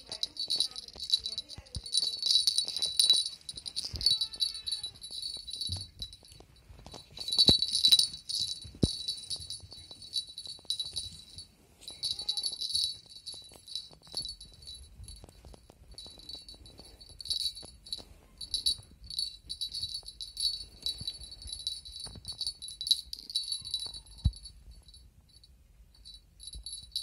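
A small jingle bell on a feather wand cat toy, jingling in irregular shakes with short pauses as the wand is waved.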